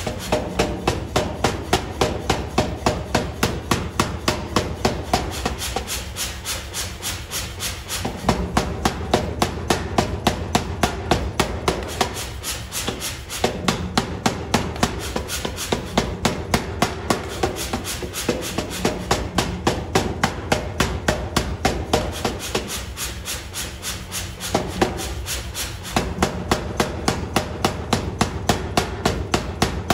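Power hammer striking a red-hot steel bar between its flat dies in rapid, evenly spaced blows over a steady low machine hum. The heavy blows drop away for a few seconds three times, then resume.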